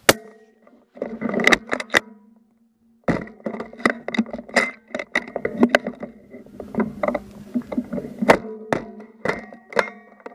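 One suppressed rifle shot from an AI AE MK3 in .260 with a titanium suppressor, a sharp crack right at the start. It is followed by a steady humming mix of tones with many scattered knocks and clatters.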